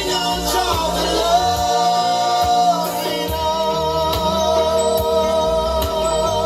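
Dancehall music with a sung vocal over bass and drums.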